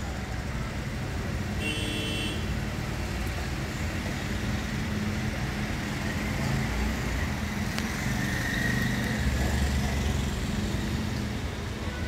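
Steady road traffic noise, with a passing vehicle making it swell about eight to ten seconds in. A brief high tone sounds about two seconds in.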